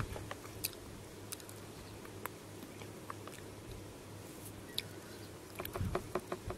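A person chewing crunchy shoestring potato chips: faint, scattered crunches, a few louder ones near the end.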